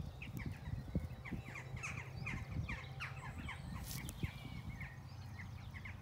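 Small birds chirping in the background: a quick, continuous run of short falling chirps, several a second, over a low steady rumble.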